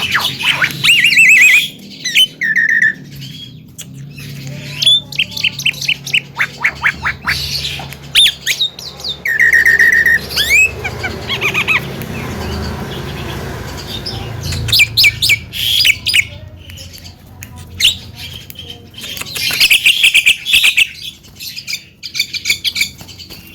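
Javan myna singing a long, varied song: runs of rapid chattering notes, harsh squawks and short whistled notes, in bursts with brief pauses.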